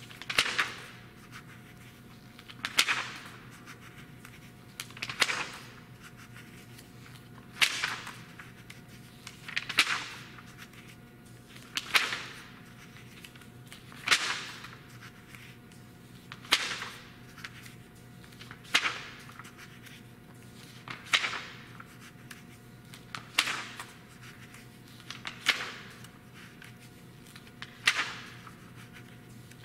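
Pages of a thick glossy magazine being turned one after another. Each turn is a crisp swish and flick, coming about every two and a half seconds.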